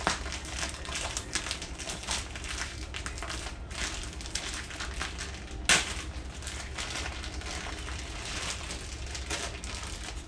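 A new, heavily greased ATV drive chain being handled: a dense, crackling run of small clicks and rustles, with one louder sharp click just under six seconds in.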